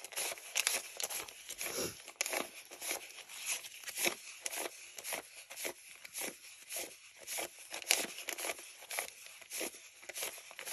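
US paper dollar bills being counted by hand, each note flicked off the stack with a crisp papery rustle, about two or three a second in a steady rhythm.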